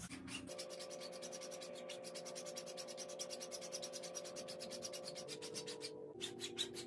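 Straight razor being stropped on a Red Imp leather barber's strop: the steel blade rubs along the leather in slow strokes with a little friction, making a dry, finely ticking scratchy hiss.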